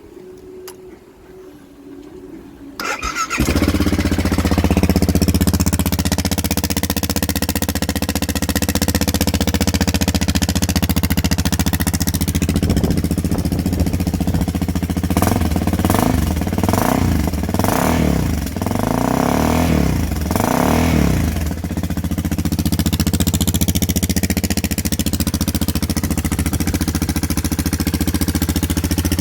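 BMW G650GS Sertao's single-cylinder engine starting about three seconds in, then idling through its exhaust, with a few throttle blips that rise and fall in pitch around the middle before it settles back to idle.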